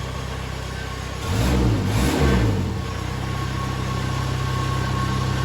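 Skid steer engine running steadily, briefly revving louder and back down about a second in before settling to a steady run. It is running on with no way to shut it off, its key broken and ignition wiring disconnected.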